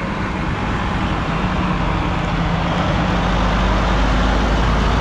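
Diesel engine of a semi tractor-trailer hauling a tanker trailer, running with a steady low drone as the truck drives up close and passes, growing louder.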